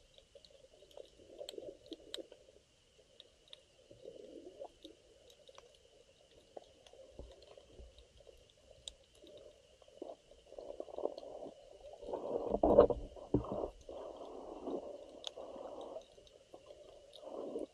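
Muffled underwater water movement heard through a camera's dive housing: irregular sloshing and gurgling that swells loudest about twelve seconds in, with faint scattered clicks over it.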